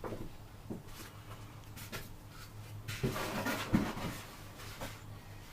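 Rustling and a few light knocks as small parts are handled, loudest about three seconds in, with scattered small clicks around them.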